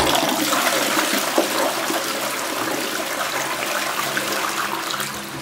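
Toilet flushing: a loud rush of water, strongest at the start and slowly easing off.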